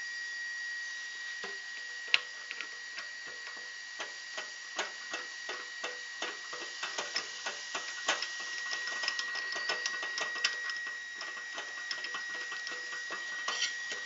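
Irregular light clicks and taps of a metal diamond core bit being handled and fitted into a drill press chuck, with one sharper click about two seconds in, over a steady faint high-pitched hum.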